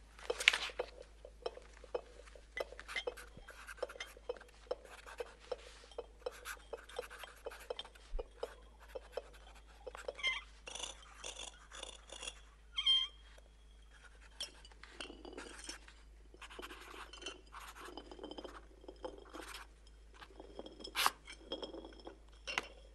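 Shards of broken glass clinking and scraping against each other and a hard surface: a long, irregular string of small sharp clicks and tinkles, some ringing briefly.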